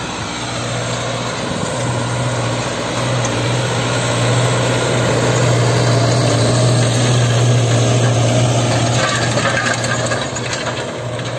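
Belarus MTZ-892 tractor's four-cylinder diesel engine running steadily under load while pulling an LD-2.5 disc harrow through dry soil. It grows louder as the tractor comes close, about halfway through, then eases off near the end.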